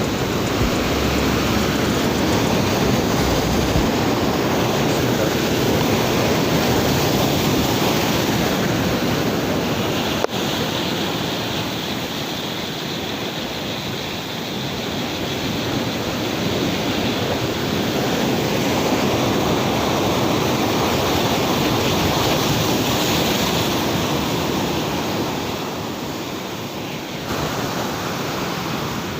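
Rough sea surf breaking against the shore, a continuous rush of water that swells and eases over several seconds; the waves are big and fierce in stormy weather.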